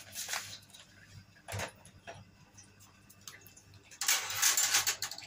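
Kitchen utensil handling: a couple of light knocks, then about a second of coarse scraping near the end.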